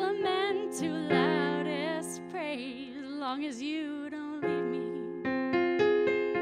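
A singer holds long, wavering notes with vibrato over sustained keyboard chords. About five seconds in, the voice stops and the keyboard chords ring on alone.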